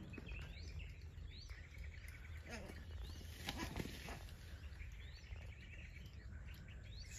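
Faint outdoor ambience with a few short, high, rising bird chirps scattered through it.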